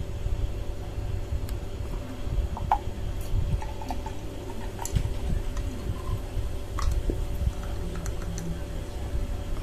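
Carbonated Fanta poured from a plastic bottle into a glass, the soda splashing and fizzing with scattered small crackles, over a low steady rumble.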